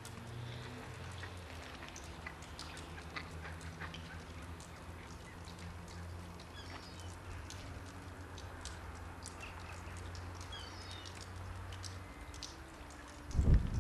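Faint outdoor ambience: a low steady hum that stops near the end, scattered light clicks, and a few brief high bird chirps. A loud thump comes about a second before the end.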